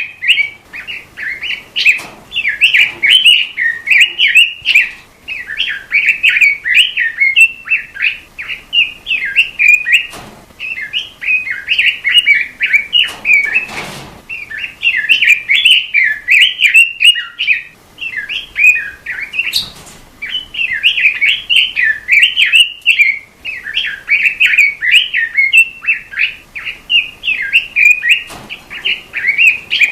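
Robin singing a fast, continuous warbling song of rapid high notes, in long phrases with short pauses between them.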